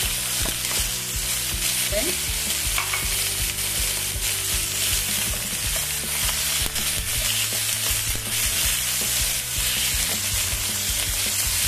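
Beef pieces searing in hot oil in a very hot frying pan: a loud, continuous sizzle with scattered light clicks. The pan is hot enough for the meat to sear dry rather than stew.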